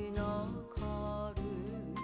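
Background music with a beat and a wavering melody line over sustained low notes.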